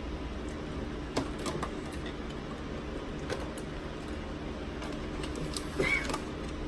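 Close-miked eating sounds: scattered soft clicks and taps from chewing and utensils, over a low steady hum, with a brief clink about six seconds in.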